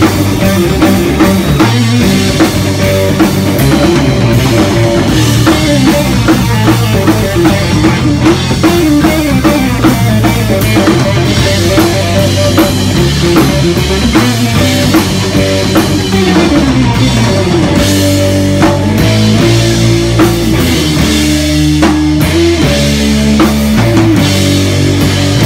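Loud heavy rock band playing live: distorted electric guitar and bass riffing over a pounding drum kit.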